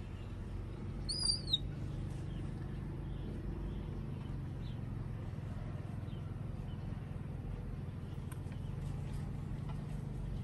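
A single short, high-pitched animal call about a second in, over a steady low hum. A few faint short chirps follow.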